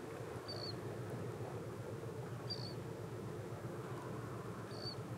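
Steady low rumble of a passing container ship's engines, with a short high chirp three times, about two seconds apart.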